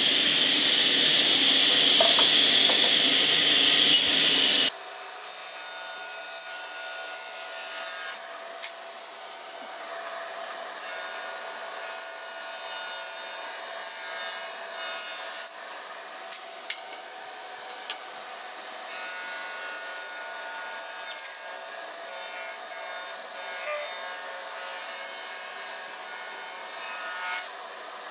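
Table saw running and ripping a timber board to width: the steady whine of the spinning blade with the rasping noise of the cut. The sound drops in level about five seconds in.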